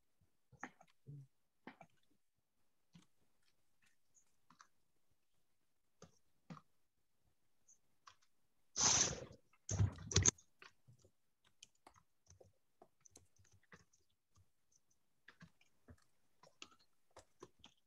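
Faint, irregular clicks of computer-keyboard typing, with two brief louder noises about nine and ten seconds in.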